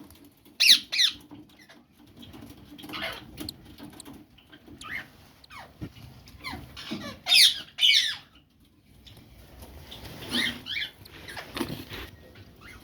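Small pet birds giving short, sharp chirps that fall in pitch, several in quick pairs, the loudest pair about seven and a half seconds in, with soft scuffling between calls.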